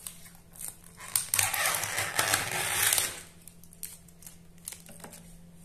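Yellow plastic sealing tape and the lid being pulled off a plastic takeaway food container: crinkling and crackling, loudest for about two seconds, then dying down to a few faint clicks.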